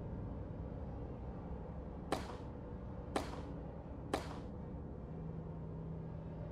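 Three sharp whip-like cracks about a second apart, each trailing off in a short swish, over a steady low hum.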